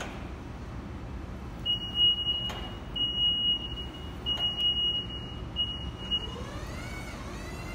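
Cat 2ET4000 electric forklift maneuvering: its reversing alarm gives four steady high-pitched beeps of uneven length. Near the end the whine of its electric motor rises in pitch as it speeds up.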